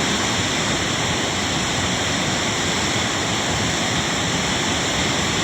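A swollen river in flood rushing, a steady noise with no let-up.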